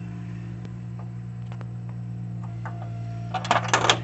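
Multimeter probes being fitted onto a sensor's connector pins: a few faint clicks of handling, then a louder clatter of clicks near the end, over a steady low hum.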